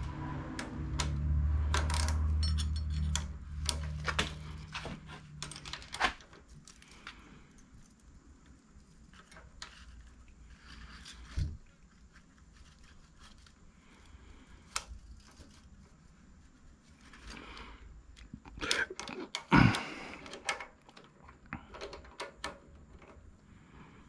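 Metal hand tools clinking and clicking against an engine's valve gear while rocker arm valve lash is being adjusted, with a low rumble in the first few seconds and one loud knock about twenty seconds in.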